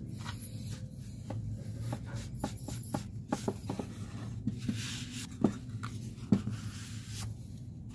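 Small pine boards being handled and fitted together on a wooden board: light wood-on-wood knocks and clicks with some rubbing, and two sharper knocks past the middle.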